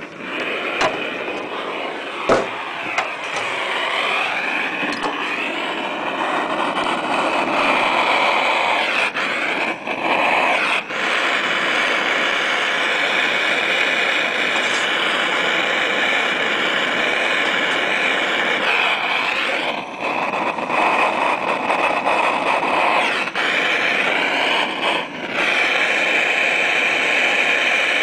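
Gas-heated soldering iron's burner hissing steadily while it solders a zinc seam, with brief drops in the hiss about ten, twenty and twenty-five seconds in. A couple of sharp clicks near the start.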